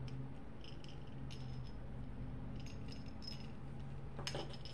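Tweezers and a small metal keychain ring clinking and ticking faintly while the ring is worked onto a keychain charm, with one sharper click about four seconds in. A low steady hum sits underneath.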